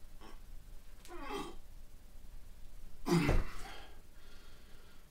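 A man's strained grunts and breaths as he pulls up on a chin-up bar: a groan falling in pitch about a second in, then a loud, forceful burst of breath about three seconds in.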